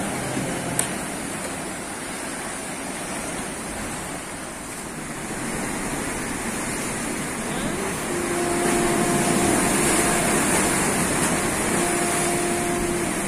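Sea surf breaking and washing over rocks: a steady rushing that grows louder about eight seconds in. A faint steady hum comes and goes in the last few seconds.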